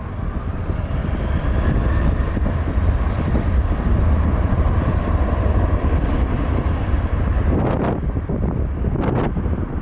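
Aircraft engine noise from an airliner passing, a steady rumble with a faint whine that slowly falls in pitch, under heavy wind buffeting on the microphone. A couple of short gusty bursts come near the end.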